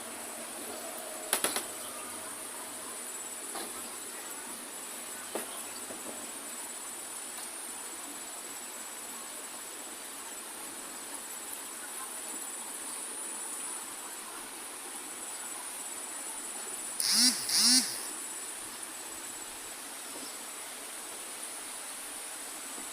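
A steady, high-pitched drone from a chorus of insects. There are a few sharp clicks early on, and two loud, short calls come close together about three-quarters of the way through.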